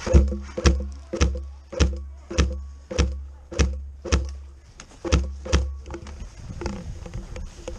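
An airsoft gun firing a string of about ten shots at a steady pace of a little under two a second. Each shot is a sharp crack with a dull thud under it, and the firing stops a little past halfway.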